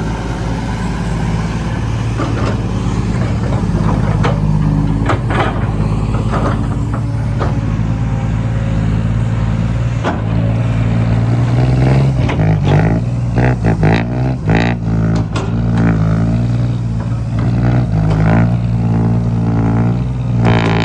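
A heavily loaded truck's engine running as it drives. The engine note is steady at first, then steps up and down from about twelve seconds in.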